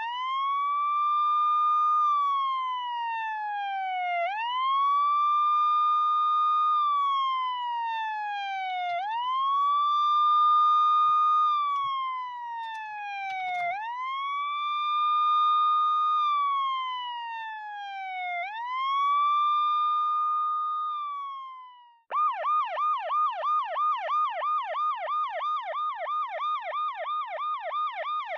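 Toy fire station playset's electronic siren: a wailing siren that sweeps up quickly and slides slowly down about every four and a half seconds, five times over, then switches near the end to a fast yelp of about three sweeps a second.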